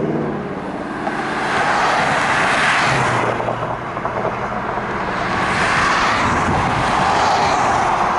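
Road traffic passing close by on a highway: tyre and engine noise of cars swelling and fading in waves.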